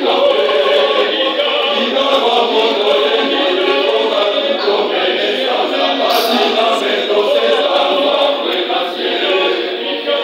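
A choir singing, many voices together in a loud, steady song.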